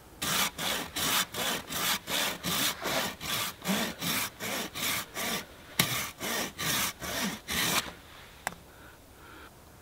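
Small green stick being sawn on a hand saw blade held upright between the feet, drawn back and forth against the teeth in quick, even rasping strokes, about three a second. The strokes stop near the end, and a single click follows.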